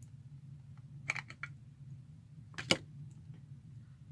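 Plastic cosmetics packaging being handled and opened: a few light clicks and taps about a second in, then a sharper, louder click around the middle.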